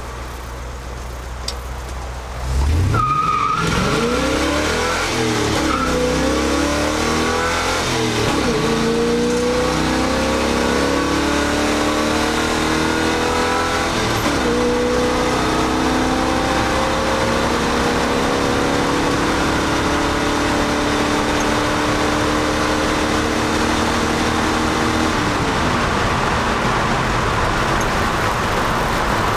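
Dodge Ram pickup's 5.9-litre V8 heard from inside the cab: idling, then launched at wide-open throttle a few seconds in and pulled hard through the gears of its five-speed manual. The revs climb and drop back at each of several upshifts, the last about halfway through, then climb slowly before the throttle is lifted near the end and the revs fall away.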